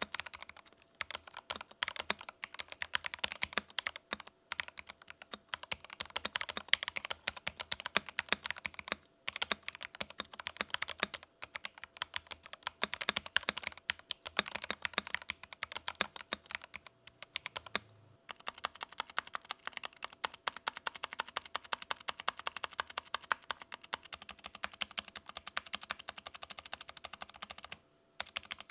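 Epomaker TH66 65% wireless mechanical keyboard, with factory-lubed switches, a steel plate and foam between PCB and plate, being typed on fast in a sound test: a dense run of keystroke clicks broken by a few short pauses.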